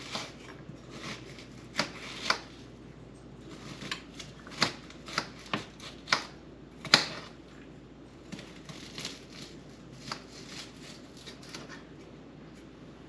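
Irregular crisp clicks and crackles from hands handling chopped onion pieces in a ceramic bowl, the sharpest about seven seconds in.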